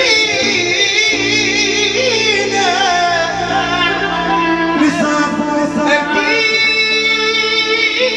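Loud live Egyptian shaabi music through a PA: a wavering, ornamented melody line with singing over held low notes that change about a second in and again near five and six seconds.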